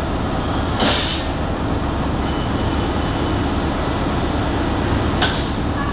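Steady engine and road noise inside a moving New Flyer XD60 articulated bus, with two brief harsh rattles, about a second in and near the end.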